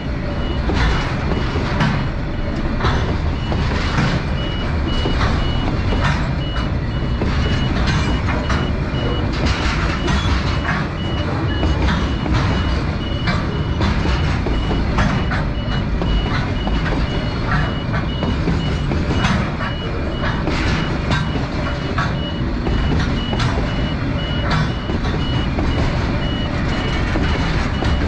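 Heavy machinery running with a rumbling engine and irregular metallic clanks, while a warning beeper sounds a steady, fast series of high beeps.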